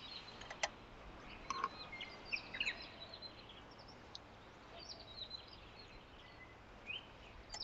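Faint outdoor background with scattered short, high bird chirps and calls throughout.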